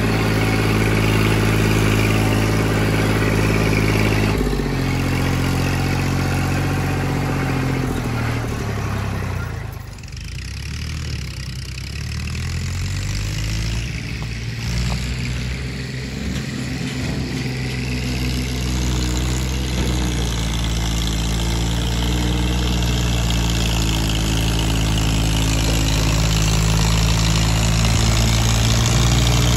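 Massey Ferguson 1035 tractor's three-cylinder diesel engine working hard under full load, pulling a trailer through mud in second gear, high range. Its engine note drops in pitch about four seconds in. It falls quieter about ten seconds in, then grows steadily louder as the tractor comes closer.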